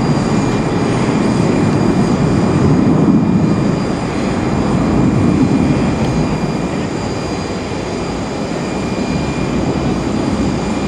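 Airbus A330-223's two Pratt & Whitney PW4000 turbofans at takeoff thrust during the climb-out: a loud, steady jet roar with a thin high whine above it, easing off slightly in the second half as the aircraft climbs away.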